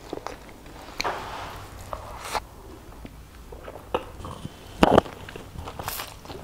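Close-miked eating sounds from a person chewing a boiled egg: wet chewing, lip smacks and short mouth clicks, with a louder burst about five seconds in. Near the end, noodles are taken into the mouth from a fork.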